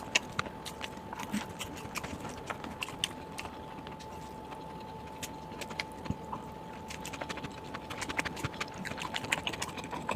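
Close-up eating sounds: food being chewed and bitten, with many small sharp clicks and crunches that come thicker near the end, over a faint steady tone.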